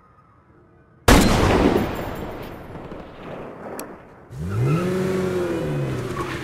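A single rifle shot about a second in, sudden and loud, echoing as it dies away. A few seconds later a van engine starts revving up and down.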